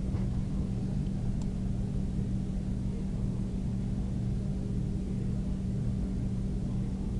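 Steady low electrical hum with a faint rumble under it, the background noise of the recording, with a single faint click about a second and a half in.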